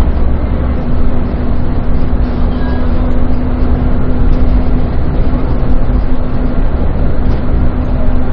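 A bus running along the road: steady, loud engine and road noise, joined near the start by a low hum held at one pitch.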